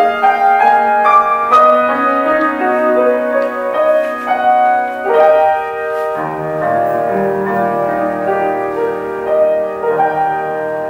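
Grand piano playing a slow piece of sustained, overlapping notes, with lower bass notes coming in about halfway and the playing growing softer toward the end.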